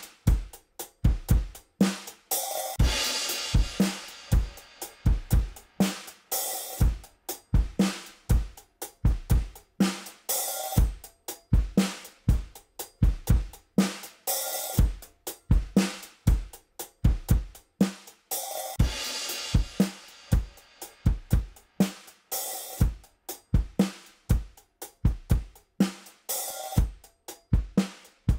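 Recorded drum kit playing a steady groove of kick, snare and hi-hat, with a crash cymbal about every four seconds, heard through a WesAudio Beta76 compressor on the drum bus.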